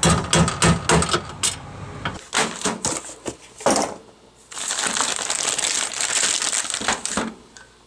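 Quick series of hammer blows on a steel punch, knocking out old rivets holding a door handle, followed by a few scattered strikes. About four and a half seconds in, a steady scraping or rustling noise runs for under three seconds.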